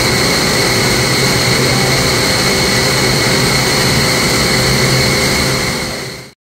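Steady, loud drone of chiller plant-room machinery, with a constant high whine over a low hum. It fades out near the end.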